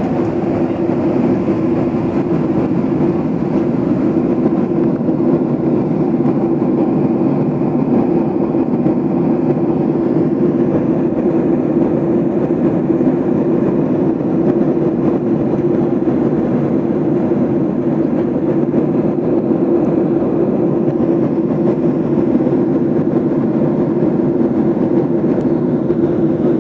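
Steady cabin noise of an airliner in flight: engine and airflow drone with a constant low hum, unchanging throughout.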